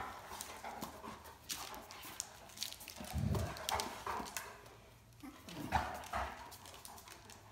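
A Great Dane and a Great Dane puppy play-wrestling on a tile floor: claws click and scrabble on the tile. Two louder low sounds from the dogs come about three seconds in and again near six seconds.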